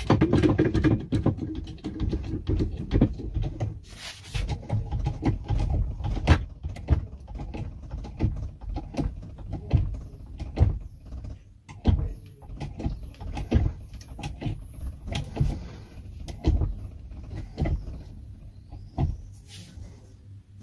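Hand-pumped hydraulic cutter being worked: a long run of irregular clicks and knocks from the pump strokes as the jaws press on a hardened padlock body, which holds without giving way.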